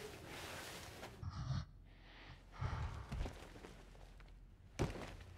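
A breathy sigh, then a few dull low thuds and a short sharp breath-like sound near the end.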